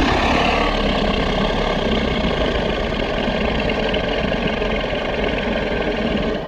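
Daspletosaurus sound effect: a long, low, rumbling dinosaur growl held steady, cutting off abruptly near the end.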